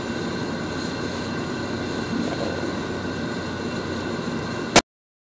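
Steady roar of an outdoor propane burner heating a crab-boil pot of water at a rolling boil. It cuts off abruptly with a click shortly before the end.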